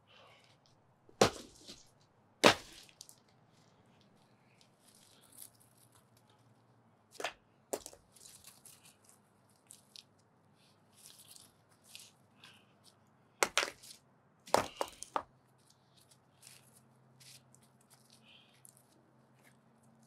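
Concrete sidewalk being broken up by hand with a sledgehammer and crowbar. Sharp cracking strikes on concrete: two loud ones in the first few seconds, a pair a little before halfway, and three close together later. Between the strikes, broken concrete scrapes and shifts.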